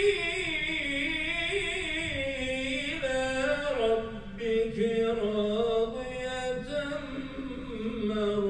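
Solo voice chanting an Islamic religious recitation unaccompanied, in long, held, ornamented notes whose pitch slowly sinks.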